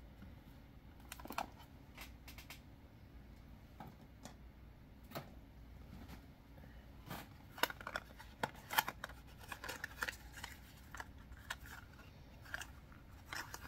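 Scattered clicks, taps and rustles of a small cardboard gift box being handled and opened by hand, busiest from about seven to nine seconds in.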